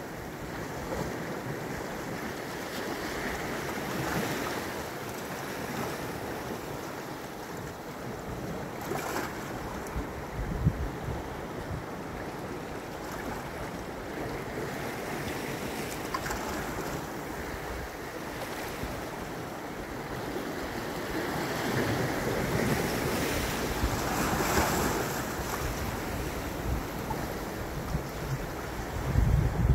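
Small sea waves washing against a rocky shore in a steady wash that swells and eases, fullest about two-thirds of the way through. Wind buffets the microphone in low thumps about ten seconds in and again near the end.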